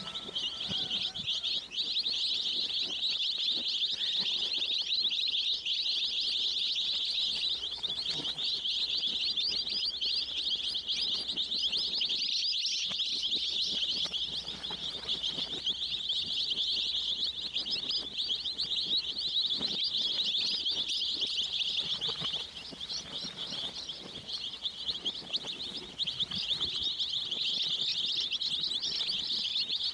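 A flock of baby chicks peeping, many high chirps overlapping into a dense, continuous chorus.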